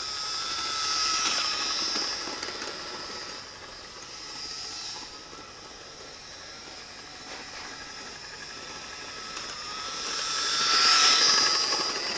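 Electric model train running on its track: a steady high-pitched whirr from the locomotive's motor and wheels on the rails, swelling about a second in and again near the end as the train passes close.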